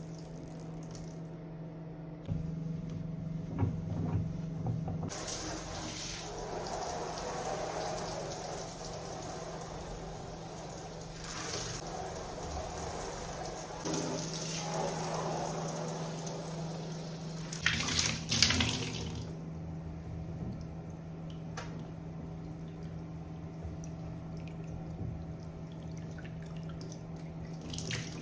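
Water running from a tap into a sink for several seconds, starting about five seconds in and stopping well before the end, with a couple of knocks near the end of the flow. A low steady hum sits underneath throughout.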